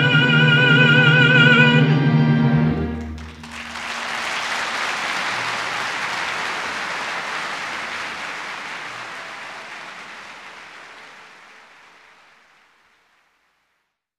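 Operatic tenor holding a final high note with wide vibrato over the orchestra, ending about three seconds in. Audience applause follows and gradually dies away.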